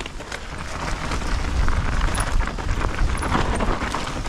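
Mountain bike descending a dirt trail: a steady rush of wind buffeting the camera microphone, with tyre noise and irregular clicks and knocks of the bike rattling over the ground.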